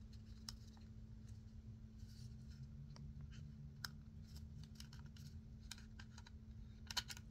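Faint plastic clicks and rattles of a universal travel adapter being handled, its slide-out plug prongs pushed and pulled, with a quick cluster of clicks near the end. A faint steady hum runs underneath.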